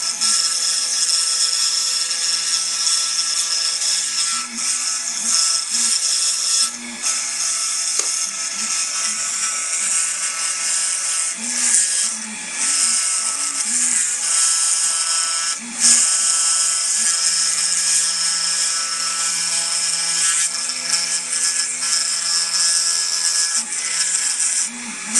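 Mini CNC engraving router's spindle running at high speed as the bit carves a wooden relief panel: a steady high whine with a strong hiss, and lower tones that shift in pitch as the cutter moves.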